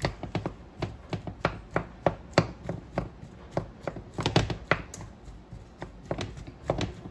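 Wooden spoon knocking against a metal saucepan while boiled potato chunks are mashed and broken up by hand. The knocks come in a quick, uneven run of about three a second.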